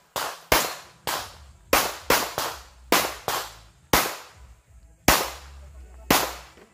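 A pistol fired rapidly in a practical shooting stage: about eleven sharp shots in quick, uneven pairs and strings, each with a short echoing tail. Near the end the gaps between shots widen to about a second.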